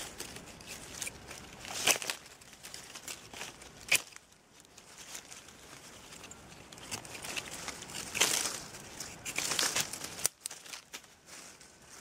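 Dry leaf litter rustling and crackling as hands work in it on the forest floor, in short scattered bursts, with a few sharp clicks from small sticks being handled.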